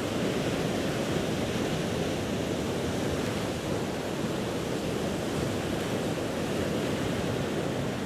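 Ocean surf on a beach, a steady even rushing with no single wave standing out.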